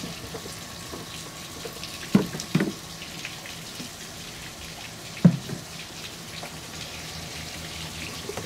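1973 Johnson 65 hp three-cylinder two-stroke outboard running steadily on flushing muffs, with hose water splashing and spraying around the lower unit. Three knocks about two, two and a half and five seconds in as the engine cover is lifted off.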